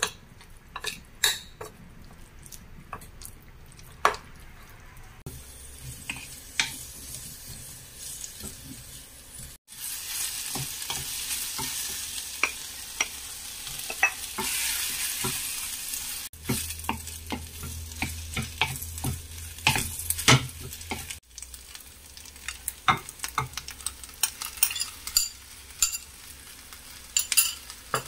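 A metal spoon clicking and scraping against a ceramic bowl while mixing marinated meat. Then comes a steady sizzle as onions and meat fry in a pot on a gas stove, with sharp clicks of utensils through it.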